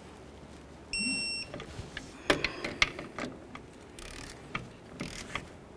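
Electronic torque wrench giving one short beep about a second in, the signal that the master cylinder stud nut has reached the set torque of 250 inch-pounds, followed by a few light clicks of the tool.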